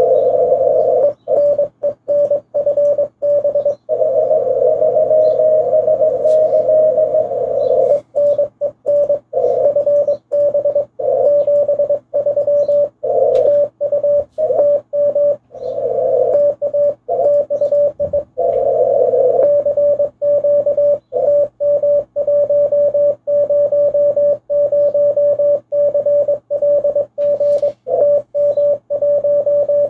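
Morse code (CW) from an amateur shortwave transceiver: a single tone of about 600 Hz keyed in dots and dashes. For roughly the first eight seconds it is a distant station's signal, with band noise, signing off a contact. After that comes the operator's own keyed reply and a CQ call, clean sidetone with brief bursts of band noise between.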